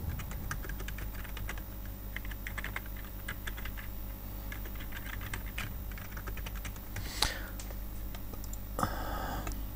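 Typing on a computer keyboard: a run of quick keystrokes for about six seconds, then a single louder click about seven seconds in.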